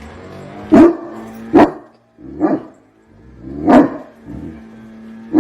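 A dog barking: about five single loud barks, spaced roughly a second apart.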